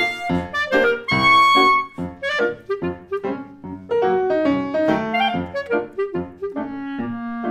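Clarinet and grand piano playing a lively duet: the clarinet carries the melody, holding one long bright note about a second in, over short, detached piano notes and chords.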